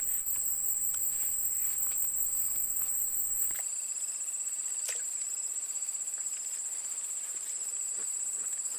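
Insect chorus: a steady, high-pitched trill with a pulsing shimmer above it, with a few faint clicks and one sharper click about five seconds in.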